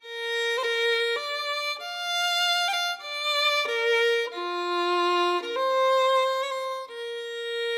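Music: a slow solo fiddle melody, one held note after another, with no bass or beat underneath.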